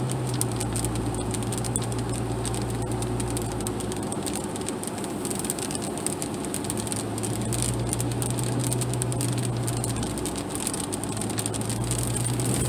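Vehicle engine and tyres on a wet road heard from inside the cab while driving, a low steady drone that fades twice and comes back. Scattered rain ticks on the windshield.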